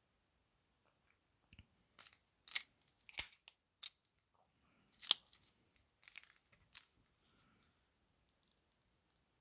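Sharp plastic clicks and small handling snaps from a blue plastic pen being handled, in an irregular run over about five seconds with three louder clicks standing out.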